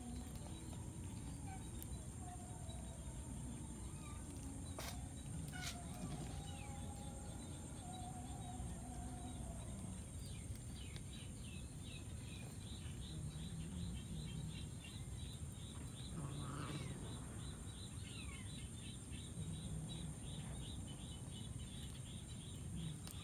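Outdoor ambience with birds chirping over a steady background hiss. From about halfway, a rapid run of short high chirps comes several times a second.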